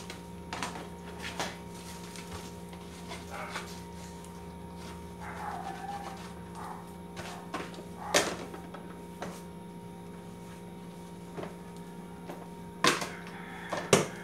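Kitchen items being handled and wiped: scattered light knocks and clatters, the loudest about eight seconds in and two more near the end, over a steady low hum.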